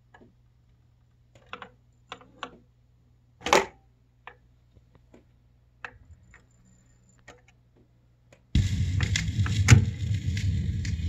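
Garrard Model 209 automatic record changer cycling, with a series of mechanical clicks and knocks. A louder thump about three and a half seconds in is the record dropping onto the platter. About eight and a half seconds in, music from the record starts suddenly as the stylus sets down.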